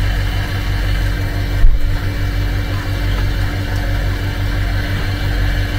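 The vacuum toilet unit of a passenger railway car runs and pumps steadily, making a hum with a fast, even low pulsing. A brief low thump comes a little under two seconds in.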